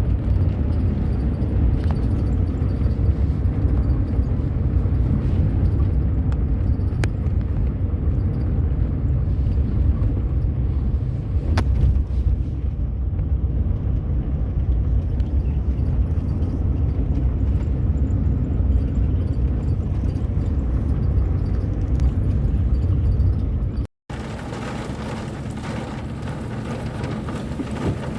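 Car driving on a road: a steady low road and engine rumble, with a few light clicks. About 24 seconds in it cuts off suddenly and gives way to a quieter, even hiss.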